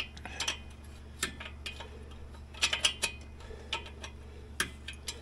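Hand wrench on 17 mm steel nuts of a snowmobile engine: irregular metallic clicks and clinks as the nuts are worked loose, with a close cluster of clicks about halfway through, over a steady low hum.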